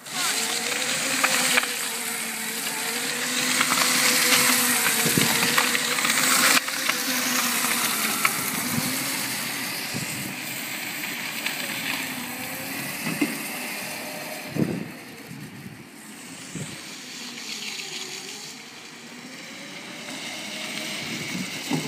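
Electric go-kart with an Etek motor and chain drive: the motor whines as it drives around, its pitch rising and falling with speed over a steady hiss. It is loudest in the first several seconds, fades as the kart moves away, and grows again near the end.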